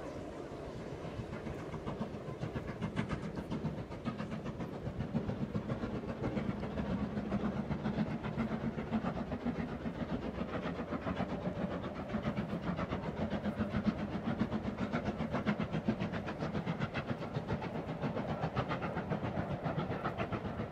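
Steam train, a black locomotive hauling carriages, passing at running speed with a rapid, steady rhythmic beat. The beat grows louder over the first couple of seconds.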